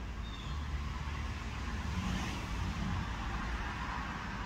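A motor vehicle passes: a steady low rumble with a hiss that swells about two seconds in and then fades.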